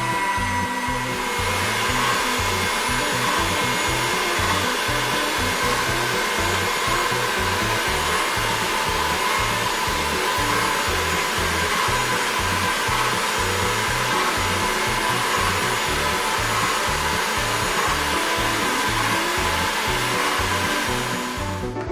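Motorised pasta machine running steadily, with a continuous whirr as egg-pasta dough feeds through its rollers and fettuccine cutter. Background music with a steady beat plays underneath. The whirr stops just before the end.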